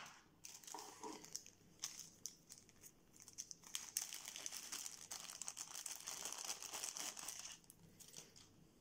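Thin clear plastic bag crinkling as earphones are worked out of it: scattered crackles at first, then a few seconds of continuous crinkling that dies away near the end. A sharp tap at the very start.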